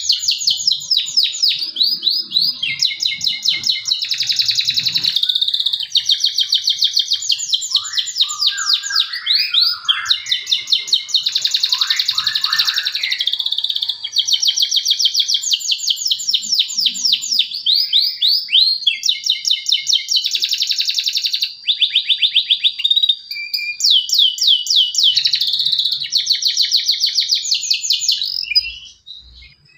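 Male domestic canary singing a long, unbroken song of fast, high-pitched trills and rolls, switching to a new phrase every second or two, with a short break near the end. This is a lure recording meant to prompt a quiet canary to start singing.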